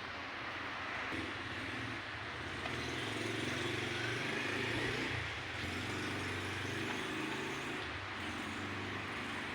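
Samsung WW80H5400EW front-loading washing machine running: a steady mechanical hum with a constant noise over it, slightly louder in the middle.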